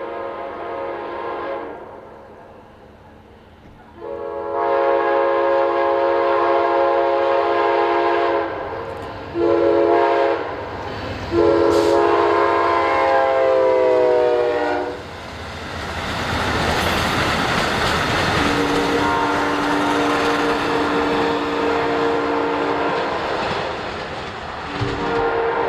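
Amtrak P42 diesel locomotive sounding its horn as it approaches: long, long, short, long blasts, the crossing signal. The horn's pitch drops as the locomotive goes by, the train rushes past, and the horn sounds on at the lower pitch as it moves away.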